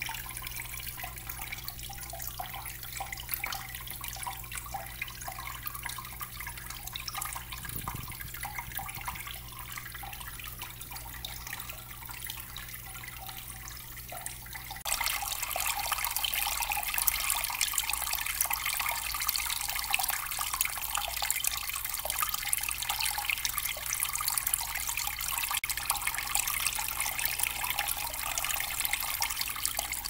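Small tabletop cement waterfall fountain running: thin streams of water trickling and splashing steadily into its basin, with a low steady hum under it in the first half. About halfway through the splashing gets louder and brighter.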